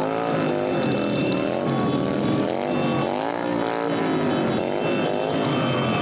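Several cruiser motorcycles revving as they ride slowly past, their engine pitch rising and falling over and over.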